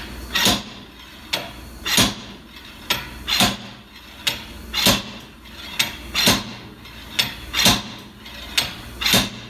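Slide hammer bolted to a BMW's rear wheel hub being yanked repeatedly: a metal clank about every one and a half seconds, each led by a lighter click. The hub is not coming free; the mechanic takes the axle to be seized in the hub.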